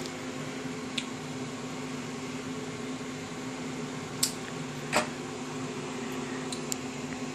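Jägermeister tap machine's cooling unit running with a steady hum while it chills the loaded bottles. A couple of light knocks sound about four and five seconds in.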